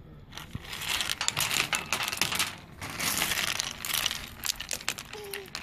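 Small loose pebbles clattering against one another and on a brick ledge as a toddler's hands sweep and push them off: a quick run of light clicks and rattles, easing off briefly about two and a half seconds in.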